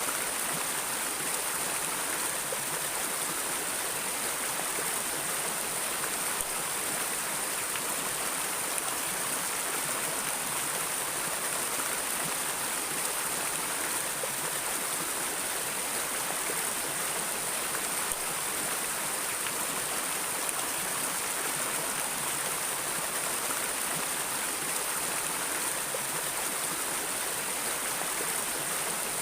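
Flowing stream water: a steady, even rushing and burbling with no pauses or changes.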